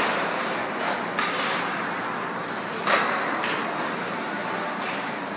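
Ice hockey being played in an arena: steady rink noise of skates on ice and a murmuring crowd, broken by sharp clacks of sticks and puck, the loudest about three seconds in.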